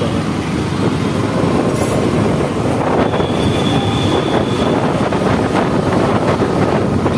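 Wind rushing and buffeting on the microphone with the rumble of a Yamaha FZS V3 motorcycle riding through city traffic. A faint, thin high tone sounds for about two seconds midway.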